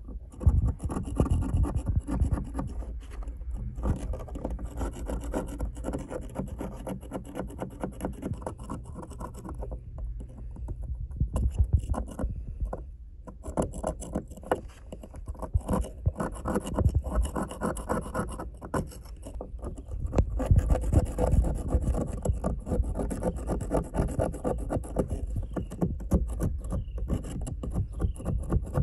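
Metal blade scraping wet rust scale off an old iron skeleton key on a wooden board, in quick repeated strokes with a short pause partway through.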